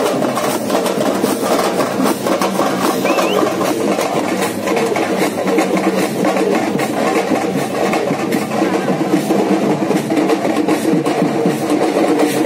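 Music with drumming and percussion, steady and loud throughout, with dense quick strokes.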